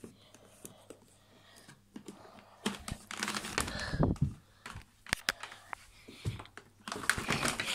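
Close handling noise: rustling with irregular clicks and taps, quiet at first and louder from about three seconds in, with one sharp click about five seconds in.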